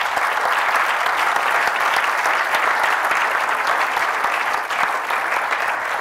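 Auditorium audience applauding: sustained, steady clapping from many hands.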